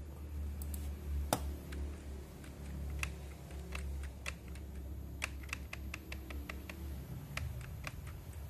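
Typing on a computer keyboard: irregular single key presses, one sharper click about a second in and quicker presses from about three seconds on, over a steady low hum.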